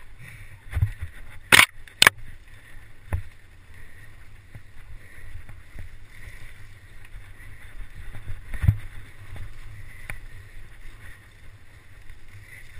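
A mountain bike riding fast over a rutted dirt trail, heard from a camera on the bike: a steady wind and tyre rumble, with sharp rattling knocks as the bike jolts over bumps. The two loudest knocks come close together about one and a half seconds in.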